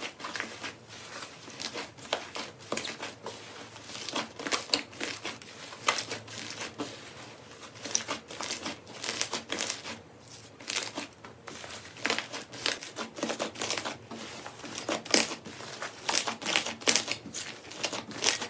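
Slime being handled, making irregular crackles and small pops.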